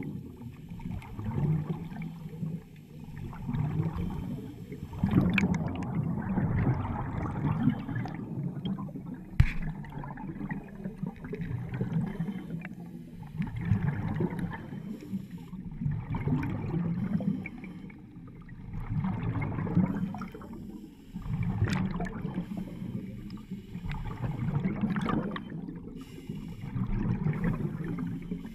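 Underwater bubbling and gurgling in surges every two to three seconds: a diver's exhaled breath venting from the helmet. A single sharp knock about nine seconds in.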